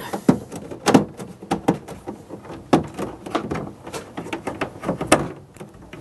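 Electric lawnmower cable being worked through the mower's plastic housing and into its clips: irregular clicks and knocks of plastic with rubbing and rustling between them, the sharpest knocks about a second in, near the middle and a second before the end.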